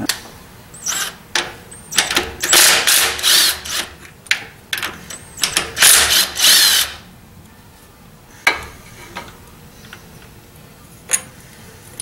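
Thermostat housing bolts on a Vortec 5.7 small-block's intake being run down with a socket tool: a string of short whirring, ratcheting bursts between about one and seven seconds in, then a couple of single clicks.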